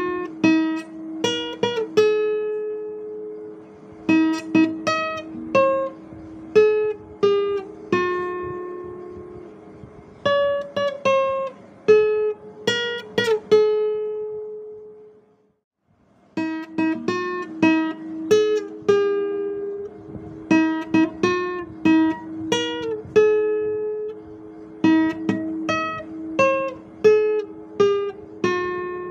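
Guitar played solo, a slow melody picked note by note in phrases with the notes left ringing. The playing stops for about a second near the middle, then starts again.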